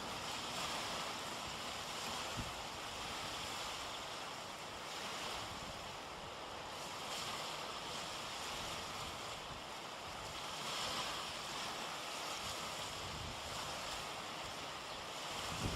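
Sea surf washing steadily on the shore, swelling and easing every few seconds, with wind buffeting the microphone.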